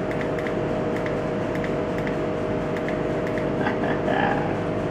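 A small electric motor in a handheld battery-powered device, switched on and running steadily.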